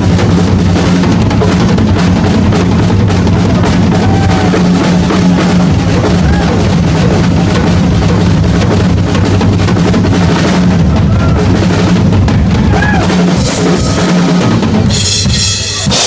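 Rock drum kit solo played live, loud and dense with bass drum, snare and cymbals; the drumming stops about a second before the end as the crowd starts to cheer.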